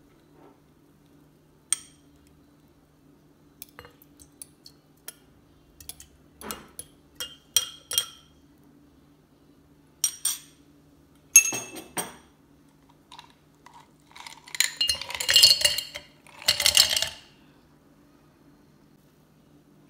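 Sharp clinks of glass and utensils as mashed strawberries go into a glass mason-jar mug, then, about 15 seconds in, a two-second clatter of ice cubes dropping into the jar.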